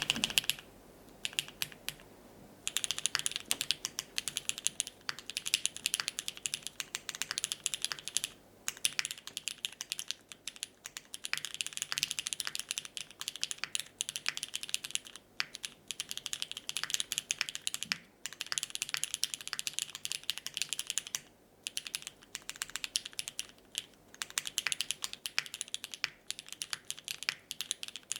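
Typing on a Keycult No. 2/65 mechanical keyboard with lubed, filmed retooled Cherry MX Black linear switches in an aluminium plate and GMK keycaps: fast, continuous keystrokes broken by a few short pauses.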